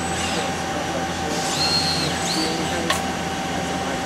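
Fanuc LR Mate 200iC robot arm's servo motors whining as the arm swings, high whines rising and falling a few times over the steady hum of the machine cell, with a sharp click about three seconds in.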